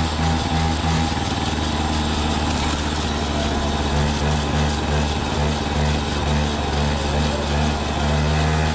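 Peugeot 103 moped's 50 cc single-cylinder two-stroke engine running under way at a fairly steady speed, with no large rise or fall in pitch.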